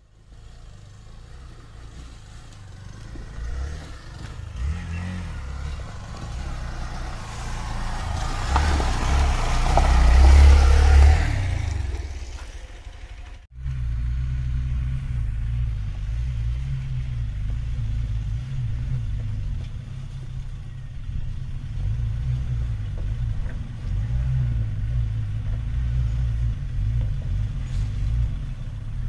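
Motor vehicle engine running. It builds to a loud peak about ten seconds in and breaks off abruptly a few seconds later, then carries on as a steady low rumble.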